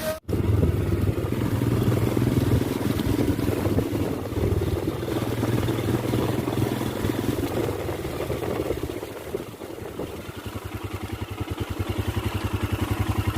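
Motorcycle engine running under way, with wind and road noise. In the last few seconds its beat turns into a distinct, fast, even pulsing.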